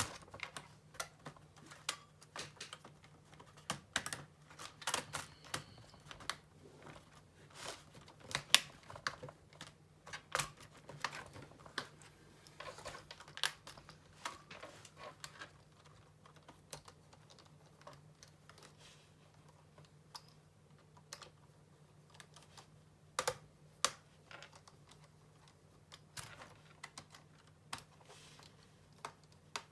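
Irregular sharp plastic clicks and taps from a laptop's plastic back cover and its screws being fitted, busier in the first half and sparser later, over a faint steady low hum.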